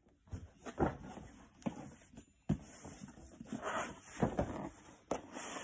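Cardboard shoe boxes being handled: rustling and several sharp knocks as a smaller shoe box is lifted out of a larger outer box.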